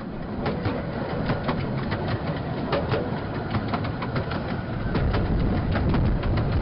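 Miniature light railway coach running along the track: a steady rumble of the wheels with frequent sharp clicks and knocks over the rail joints, the rumble growing louder about five seconds in.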